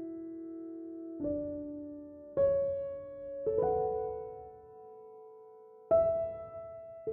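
Slow, soft piano music: notes or chords struck about once a second, each left to ring and fade, with a longer pause before a last chord near the end.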